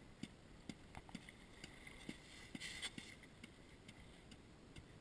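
Near silence with faint scattered clicks and knocks and a brief hiss a little past the middle.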